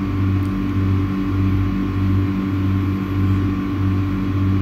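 Steady hum of running machinery, with a low throb that pulses about twice a second under a constant higher tone.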